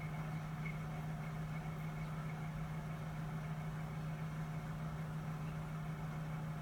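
Home water heater giving off an abnormal noise: a steady low hum with a faint high whine above it, unchanging throughout.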